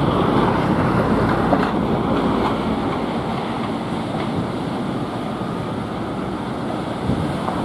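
Rough sea surf breaking, with strong wind buffeting the microphone: a steady rushing noise throughout.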